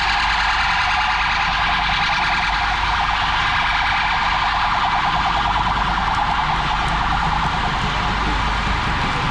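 Emergency-vehicle siren sounding with a rapid warble, loud and steady, over the low rumble of traffic.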